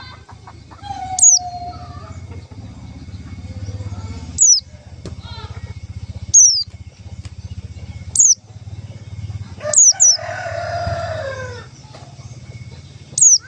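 White-eye (pleci) giving thin, high calls that sweep sharply downward, one roughly every two seconds, some doubled. A rooster crows in the background about ten seconds in, over a steady low hum.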